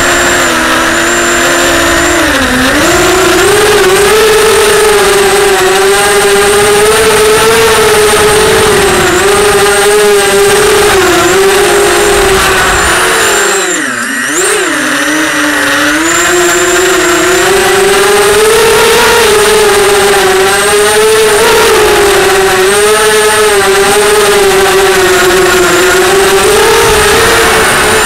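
Storm SRD280 racing quadcopter's motors and propellers whining loud and close from the onboard camera, the pitch wavering up and down with the throttle. About halfway through the pitch drops sharply as the throttle is cut, then climbs back.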